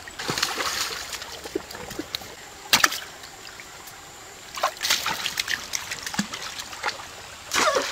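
Splashing in shallow stream water around a large catfish: a string of sharp splashes over a steady trickle, the loudest about three seconds in and another cluster near the end.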